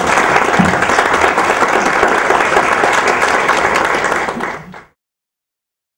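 Audience applauding, cut off suddenly about five seconds in.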